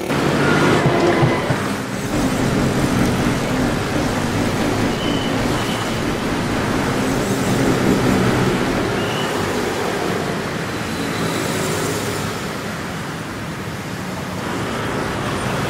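Heavy city street traffic: many motorcycle and car engines running close by in a dense, steady din, with a few brief high-pitched tones near the middle.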